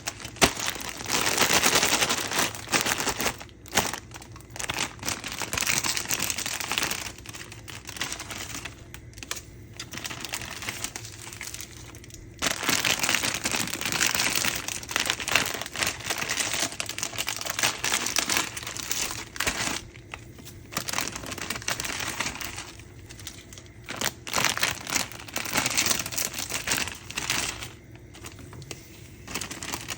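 Packaging crinkling and rustling as it is handled, in irregular stretches with a few short pauses.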